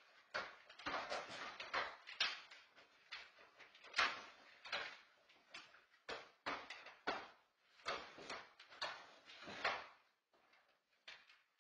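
Hard plastic pet carrier scraping and knocking on a hardwood floor as a dog moves about underneath it, in irregular short scrapes that come several a second at times. The loudest scrape is about four seconds in, and the sounds thin out near the end.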